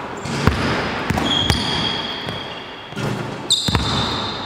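Basketballs bouncing on a wooden gym floor in a large hall: several separate thuds. Two high-pitched squeaks come through, a longer one a little over a second in and a shorter one near the end.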